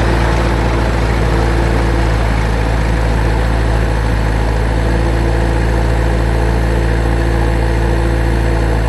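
Tractor engine idling steadily, a low, even drone with no revving.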